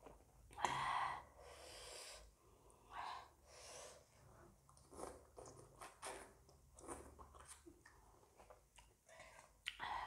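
Close-miked mouth sounds of a person eating spicy noodles: wet chewing, with a louder, longer slurp about a second in and smaller slurps and smacks through the rest.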